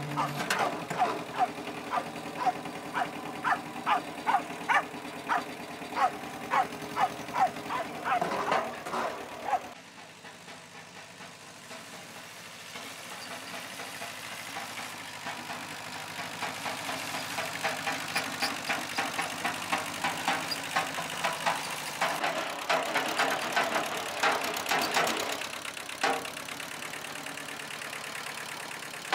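A dog barking over and over, about two barks a second, with an engine running underneath. The barking breaks off suddenly about ten seconds in, and fainter barking returns later over the engine.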